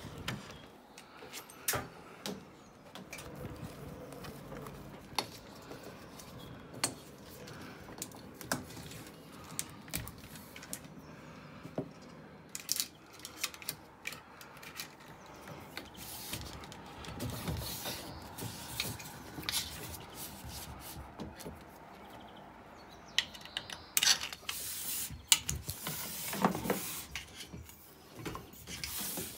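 Handling noise from a home-made antenna mast being assembled by hand: irregular clicks, knocks and rubbing of metal and plastic pole sections and a clamp, with a denser run of louder knocks near the end.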